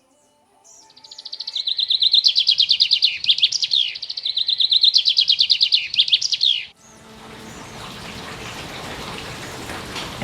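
A songbird singing two loud phrases of fast repeated high notes, each ending in a few sliding notes. The song cuts off suddenly about seven seconds in, replaced by a steady hiss.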